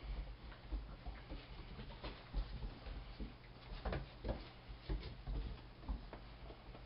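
A puppy's paws and claws pattering and scrabbling on wooden deck boards as it plays with a rubber toy, with irregular light taps and knocks, a few louder ones in the middle.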